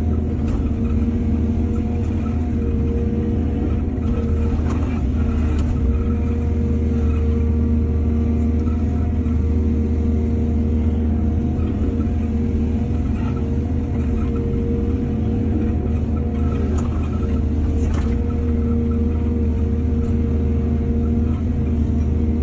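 Heavy earthmoving machinery's diesel engine running steadily at a constant speed, with a few faint knocks now and then.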